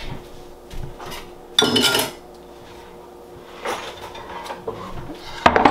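Metal pots and pans clattering and knocking, with one loud ringing clatter about a second and a half in and a few lighter knocks, over a faint steady hum.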